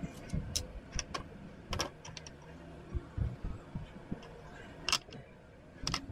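Small plastic model-kit parts clicking and tapping against a desk as they are picked up and set down, in irregular scattered clicks with soft handling thumps; the sharpest click comes about five seconds in.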